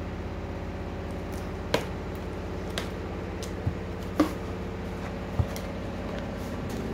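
Cardboard box flaps being pulled open by hand, with about five short, sharp cracks and knocks of the cardboard over a steady low hum.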